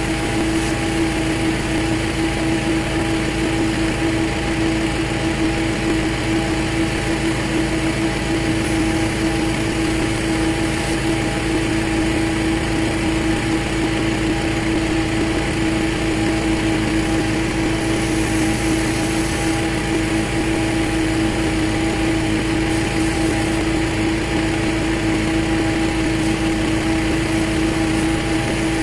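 Gas engine of a pressure washer running at a steady speed, with the hiss of the high-pressure water spray over it.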